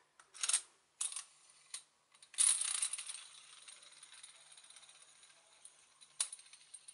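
The aluminium T-handle of a bearing press is spun freely down its threaded rod toward a bicycle freehub: a few sharp metal clicks, then a rattling whirr about two seconds in that fades over several seconds, and one sharp click near the end. This is the press being run down before it presses a freehub bearing into place.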